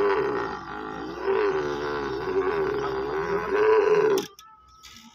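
A kneeling dromedary camel bellowing with its mouth wide open while it is saddled and loaded: a long, wavering groan that breaks off sharply about four seconds in.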